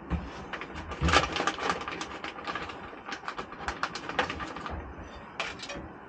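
Irregular clicking and rattling of hands handling wiring and small light-fitting parts, with two low thumps about a second apart near the start and one last click a little after five seconds in.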